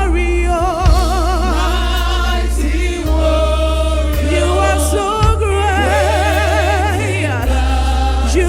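Gospel choir singing a worship song, voices held with a wide vibrato over a band with a deep, steady bass line and occasional drum hits.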